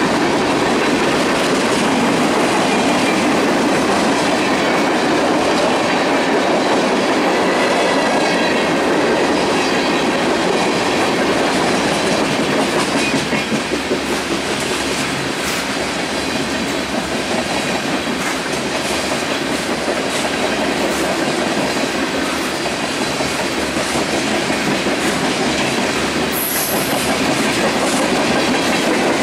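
Freight cars of a mixed manifest train rolling past at speed: steel wheels running on the rails with a steady loud rumble and clickety-clack over the joints. A brief high-pitched squeal comes near the end.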